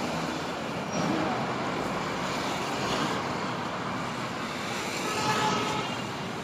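Steady road traffic of cars, buses and motorbikes passing on a busy city road, with a brief vehicle horn near the end.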